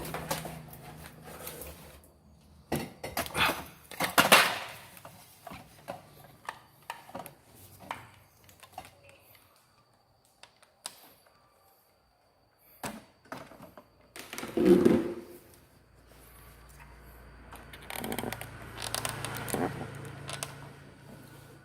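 Hands handling a power cord and small tools: scattered clicks, taps and rustles, with a louder rustle about fifteen seconds in.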